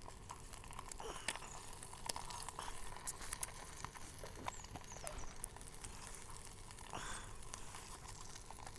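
Bacon and an egg frying in a non-stick frying pan over a meths burner: a faint hiss with scattered crackles and pops of spitting fat.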